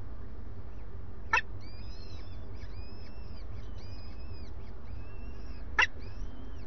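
Faint, high, rising-and-falling peeps of downy peregrine falcon chicks, repeated about twice a second, typical of chicks begging while being fed. Two sharp clicks come about a second and a half in and near the end, over a steady low rumble.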